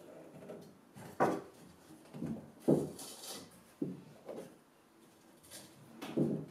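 The wooden shelf and turned spindle posts of an old bookcase knocking together as the shelf is fitted onto the posts by hand: about six short wooden knocks and clunks, spaced irregularly.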